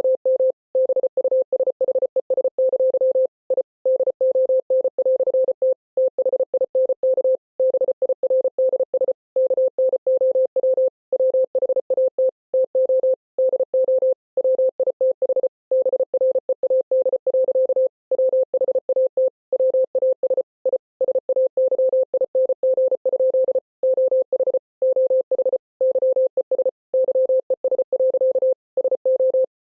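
Morse code sent as a single mid-pitched electronic beep, keyed rapidly on and off in dots and dashes, with short gaps between letters and slightly longer ones between words, spelling out a text.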